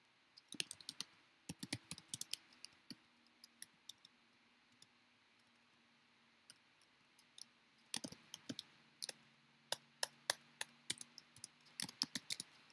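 Computer keyboard typing: quick runs of key clicks, thinning out to a few scattered clicks around the middle and picking up again in a dense run in the last few seconds.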